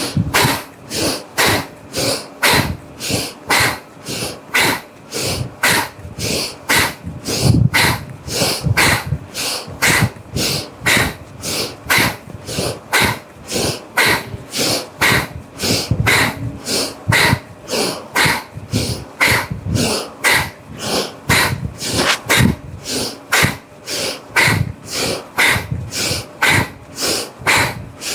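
Bhastrika bellows breathing: rapid, forceful breaths in and out through the nose, about two strokes a second in an even rhythm.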